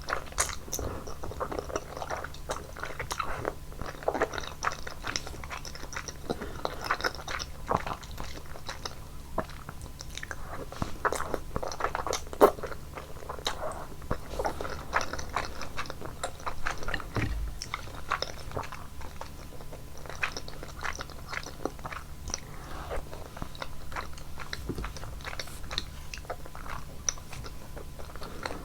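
A person chewing and biting basil cream buldak udon noodles close to the microphone, with many small mouth clicks throughout.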